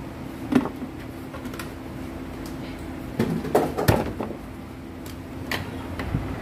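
Sharp knocks and clatter of engine-oil bottles being handled at a funnel during an oil refill: one strong knock about half a second in, a cluster of knocks around the middle as a bottle is set upside down in the funnel, and a couple more near the end. A steady low hum runs underneath.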